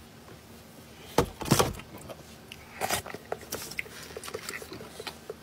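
Close-up eating sounds: a metal spoon scraping marrow out of a roasted beef marrow bone, as a run of short sharp clicks and knocks. The loudest come a little over a second in and again near three seconds, with lighter ticks between and after.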